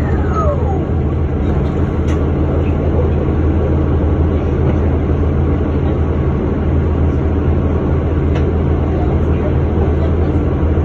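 Hybrid city bus with a Cummins ISB 6.7 diesel and BAE HybriDrive electric drive: a falling electric whine from the drive fades out within the first second, the sign of the bus slowing, and then the engine's steady low drone carries on with the bus's general running noise.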